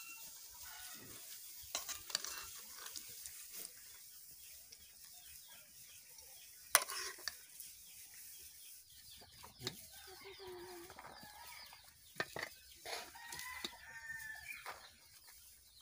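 Metal spoon scraping and clinking against a steel kadai as curry is ladled out, with one sharp metallic knock about seven seconds in. A rooster crows and clucks in the second half.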